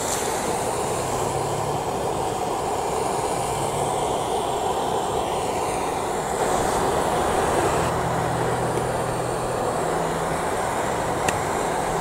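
Handheld gas torch burning with a steady hissing jet of flame aimed at a coffee maker; a single sharp tick near the end.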